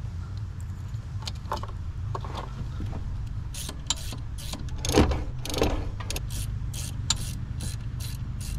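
Hand ratchet clicking in short strokes, two to three a second, as a bolt on the alternator is turned, starting about a third of the way in, with one louder metallic clank about halfway. A steady low hum runs underneath.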